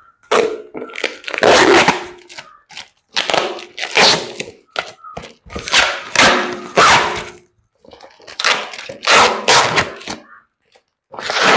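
A small taped cardboard box being torn open by hand: a string of loud ripping and cracking bursts from the tape and cardboard, with short pauses between pulls.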